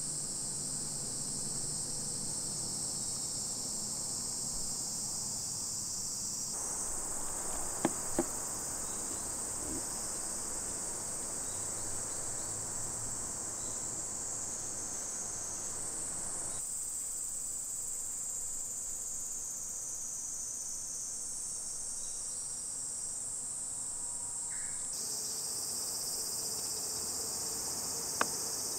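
Steady, high-pitched chorus of insects buzzing in the forest, with a couple of sharp clicks about eight seconds in and another near the end.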